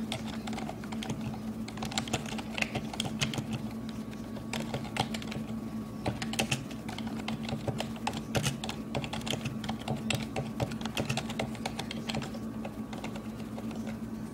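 Typing on a computer keyboard: a quick, irregular run of key clicks with short pauses, over a steady hum.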